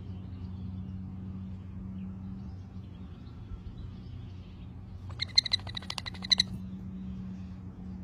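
Young parrot chicks giving a quick run of high chirps, about ten a second, for a second and a half about five seconds in, over a steady low hum.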